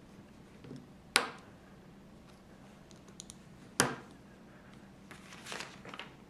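Small plastic Lego pieces being pressed onto a Lego plate: two sharp snap-clicks about two and a half seconds apart, then a spell of fainter clicking and rubbing near the end.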